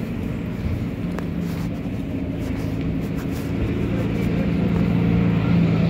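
City road traffic: a motor vehicle's engine humming steadily over the hiss of passing traffic, growing louder toward the end as it comes closer.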